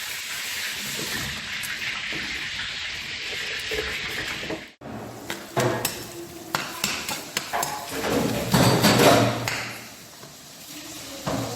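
Cooking sounds at a pot: a steady hiss that cuts off suddenly, then the scattered knocks and clatter of a pot and utensils, loudest a little after the middle.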